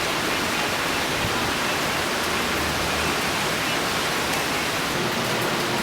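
Heavy rain falling hard, a steady, even hiss.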